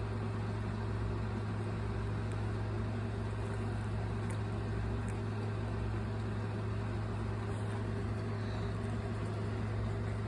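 A steady low hum from a running fan or appliance motor, even in level throughout.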